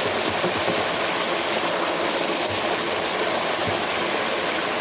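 Battered crab pieces deep-frying in hot oil: the oil sizzling and bubbling steadily.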